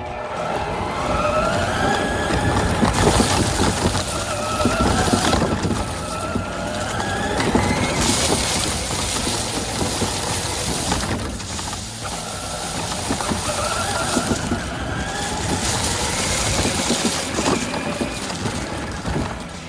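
Electric motor of a large 20V Power Drive RC monster truck whining, its pitch rising and falling with the throttle, with bursts of rushing tyre and ground noise as it is driven.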